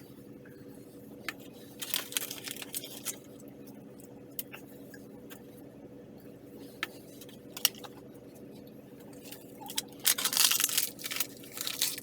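Scattered clicks and crinkles of MRE plastic food packets being handled, with a burst of loud crinkling near the end, over a steady low hum.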